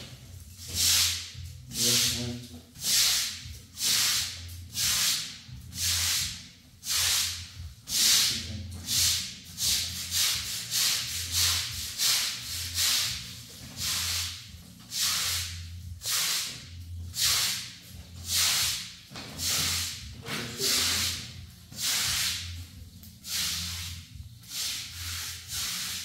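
Stiff-bristled push broom scrubbing a wet concrete floor in steady back-and-forth strokes, about one a second, each a scratchy swish.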